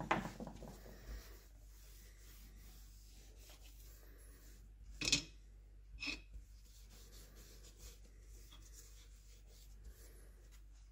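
Faint rubbing and scraping of hands and a tool working inside the milling machine's gearbox housing, fishing out a small part that fell in, with a few light clicks and knocks, the clearest about five seconds in.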